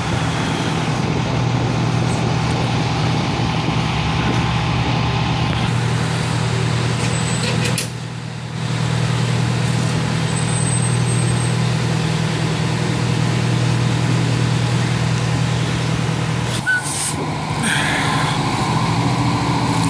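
Fire trucks' diesel engines running with a steady low hum, over a haze of street noise. The hum breaks off briefly twice, about eight seconds in and again near the end.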